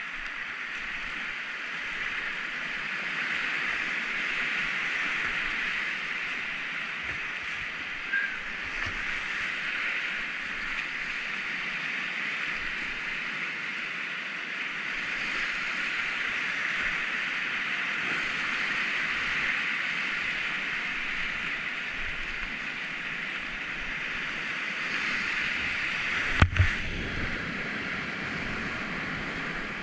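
Whitewater of the Enns river rushing steadily, heard from a kayak running the rapids at a flow of about 75 m³/s. A sharp knock sounds near the end.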